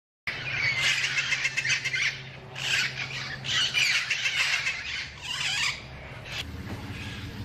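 Wild parrots squawking: harsh, raspy calls in four or five loud bouts, then dying down near the end. A low steady hum runs underneath.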